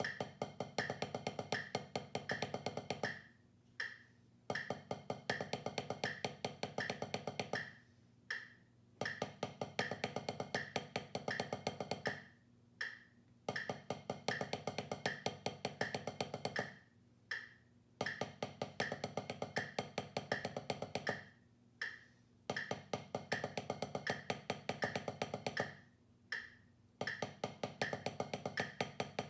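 Wooden drumsticks striking a drum practice pad in fast, even strokes, played in phrases of about four seconds with short pauses of about a second between them.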